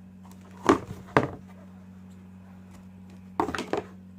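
Sharp knocks from items being handled: two about a second in and a short clatter near the end, over a steady low hum.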